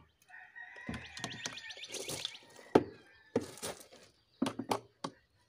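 Knocks and clacks of a wooden formwork mold and its metal latches being handled, a string of separate hits with one sharp knock about halfway through.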